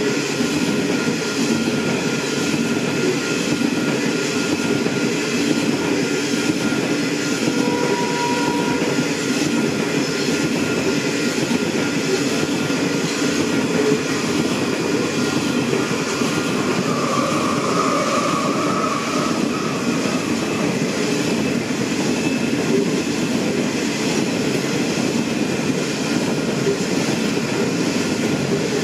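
Railway wagons rolling past steadily, their wheels clattering in an even rhythm over the rail joints. A brief wheel squeal comes about 8 seconds in, and a longer one from about 17 to 19 seconds.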